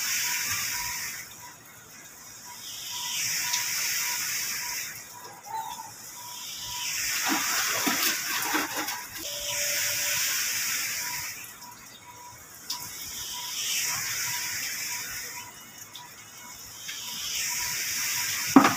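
Water spraying with a hiss that swells and fades every two to three seconds, with a sharp knock near the end.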